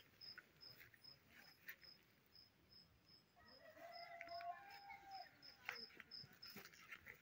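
A cricket chirping steadily, a short high chirp about three times a second, faint against a quiet rural evening. About three seconds in, a faint distant drawn-out call lasts about two seconds.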